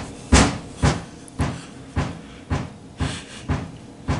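Heavy footsteps thudding in an even rhythm, about two a second, stopping near the end.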